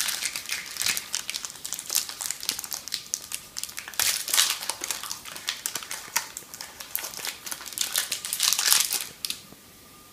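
Protein bar wrapper crinkling and crackling as it is torn open and unwrapped by hand, with louder bouts about four seconds in and near the end. It stops about nine seconds in.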